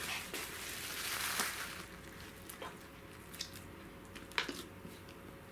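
Quiet wet squishing and small sticky clicks of a glossy pink slime being stretched, folded and pressed by hand, with a soft rustle over the first couple of seconds.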